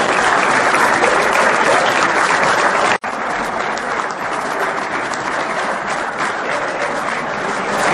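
Audience applauding: many hands clapping in a dense, even patter. The sound breaks off for an instant about three seconds in, then goes on slightly quieter.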